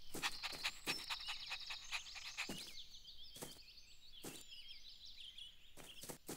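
Faint birdsong ambience: many small high chirps, with scattered light taps, more of them in the first half.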